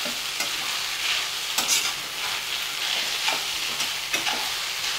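Boiled noodles sizzling in a hot iron kadai as a steel spatula tosses them, with several scrapes and clinks of the spatula against the pan.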